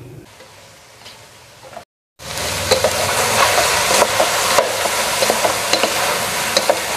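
Sliced luffa stir-frying in a hot pot: a steady, loud sizzle with the small clicks and scrapes of a wooden spatula stirring. The sizzle starts abruptly about two seconds in, after a quiet stretch.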